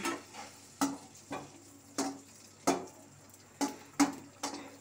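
Pani puri shells frying in hot oil in a steel kadai: irregular sharp sizzling pops and spits, about nine in under five seconds, each dying away quickly.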